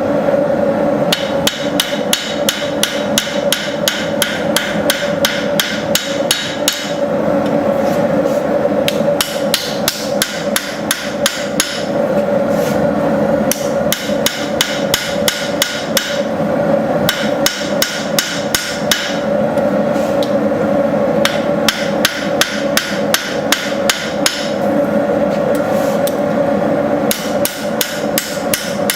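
Hand hammer striking a hot steel knife blade on an anvil in quick runs of light blows, broken by short pauses, planishing the forged blade flat. A steady hum runs underneath.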